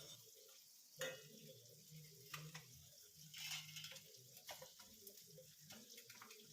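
Near silence with a few faint clicks and soft handling noises, about half a dozen scattered through, as a metal rotisserie spit is worked through a raw marinated whole chicken and its clip fitted.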